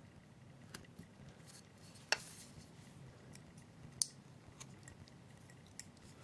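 Small carving knife slicing into a wooden figure: a few short, sharp snips and clicks as the blade cuts and frees small chips, the loudest about two seconds in and another about four seconds in.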